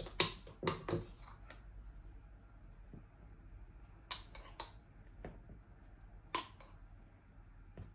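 Irregular sharp clicks and taps of small hard objects being handled: a cluster in the first second, three close together about four seconds in, then single ones spaced out.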